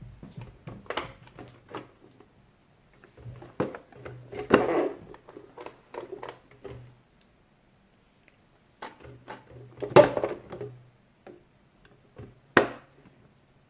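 Hands working a plastic toy microwave: scattered clicks and knocks as toy sausages go in, the door is shut and the buttons are pressed. There are a few louder knocks, one near the middle and two toward the end.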